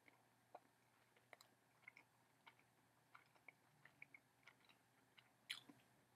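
Faint chewing of a mouthful of pan pizza: small wet mouth clicks and smacks, a few each second, with one louder smack near the end.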